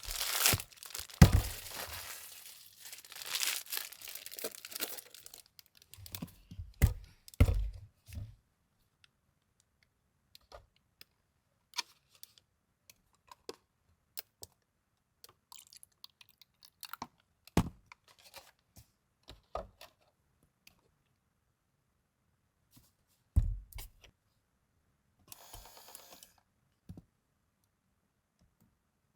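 Plastic packaging crinkling and tearing, then scattered small taps, clicks and knocks of items being handled on a table, with a short buzz near the end.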